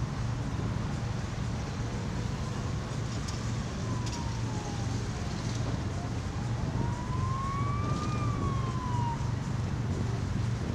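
An emergency-vehicle siren wailing: one tone sliding slowly down, then up, then down again before it fades near the end. Under it runs a steady low rumble.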